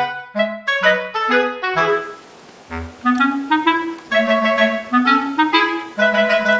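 Background music: a melody of short, separate notes on a reed or wind instrument, with a brief break about two seconds in.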